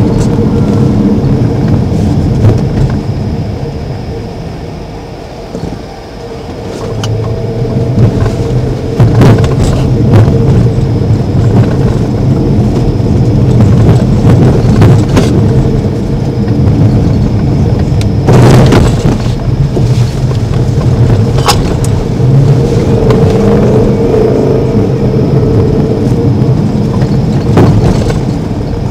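Vehicle driving, heard from inside the cab: steady engine and road rumble that eases off about five seconds in and picks up again around eight seconds, with scattered knocks and rattles.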